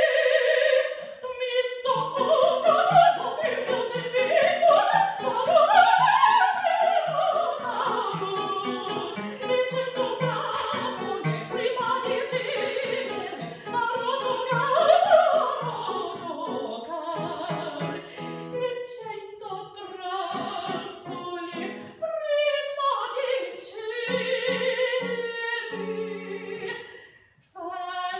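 A female opera singer singing an aria with piano accompaniment. She holds long notes with vibrato and twice sweeps up and then down in fast runs over evenly repeated low chords.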